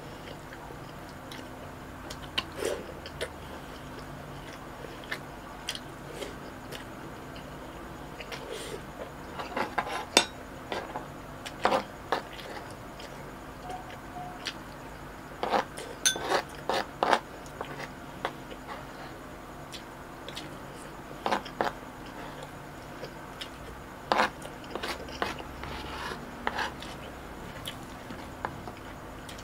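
Metal spoon scraping and tapping on a wooden serving board as rice and ground pork are scooped up, with chewing in between. The clicks come irregularly, in short clusters.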